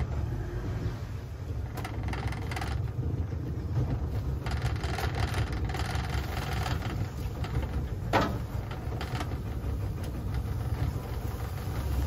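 Small boat's outboard motor running steadily at low speed, with one brief knock about eight seconds in.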